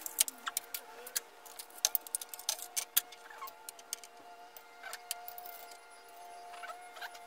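Small brass air-line fittings and couplings clicking and clinking together as they are handled, a string of irregular sharp metallic ticks over a faint steady hum.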